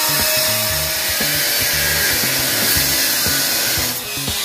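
Angle grinder with a thin cut-off wheel cutting through sheet steel, a steady high-pitched hiss that eases off briefly about four seconds in as the wheel lifts from the cut. Background music with a beat plays underneath.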